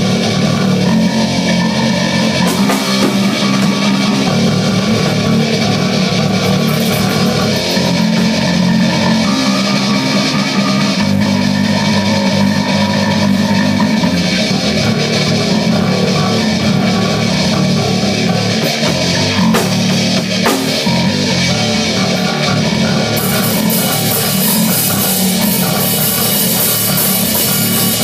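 A heavy metal band playing loudly: a drum kit and electric guitar, the guitar in drop tuning.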